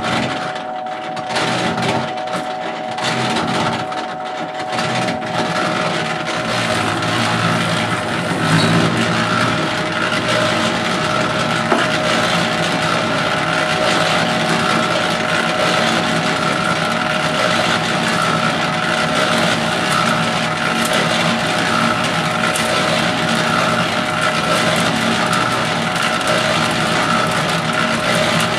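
Harbor Freight 3.5 cubic foot electric cement mixer running, its drum turning and tumbling a batch of concrete made of water, crushed stone, sand and Portland cement, with a steady hum. The sound is uneven for the first few seconds as cement is poured in, then settles into a steady churning.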